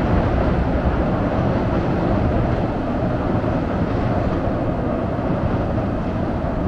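Oigawa Railway Ikawa Line train crossing a steel truss bridge, a steady low rumble.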